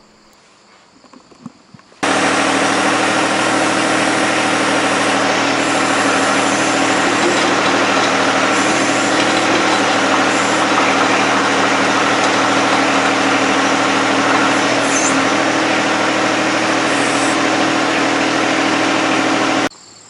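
John Deere 1025R compact tractor's three-cylinder diesel engine running at a steady speed. It comes in suddenly about two seconds in and cuts off abruptly near the end.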